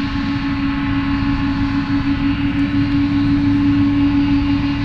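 Boeing 777-200's twin turbofan engines running at taxi power as the jet rolls past close by: a steady hum with a strong low whine and several higher whines over a low rumble.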